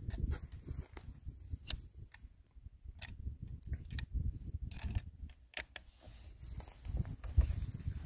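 Scattered light clicks from a Savage Axis .308 bolt-action rifle being loaded and readied to fire, over an uneven low rumble. No shot is fired.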